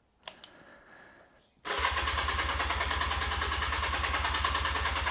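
Motorcycle's electric starter cranking the engine steadily on a new battery, starting suddenly about a second and a half in after a light click; the engine does not catch.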